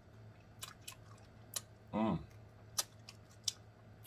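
A man eating chicken wings: sharp, wet lip and tongue smacks, several of them spread through, with a short hummed "mm" that dips and rises in pitch about two seconds in.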